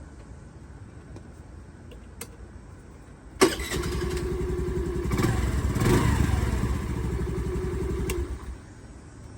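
Honda Navi scooter's small single-cylinder engine starting, running for about five seconds with one blip of the throttle near the middle, then shut off. It is run briefly after an oil change to circulate the fresh oil before the dipstick level is checked.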